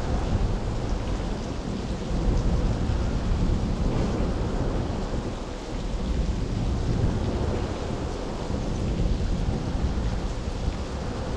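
Steady low rumble with the hiss of heavy rain over it: rain falling around a motorway bridge, with traffic on the bridge rumbling overhead.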